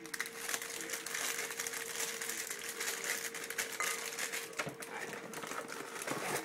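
Plastic sleeve of Ritz crackers crinkling as crackers are shaken out of it into a bowl, with many small clicks of crackers landing.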